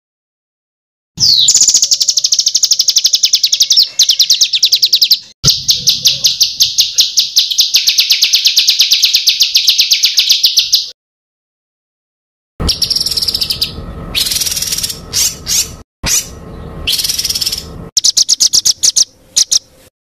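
Songbird song from a masteran tutor recording, the kind played to cage birds such as magpie-robins to teach them calls. It opens with two long, rapid trills of fast, evenly repeated high notes. After a short gap of dead silence come shorter, varied chattering phrases and trills, cut by abrupt silent breaks.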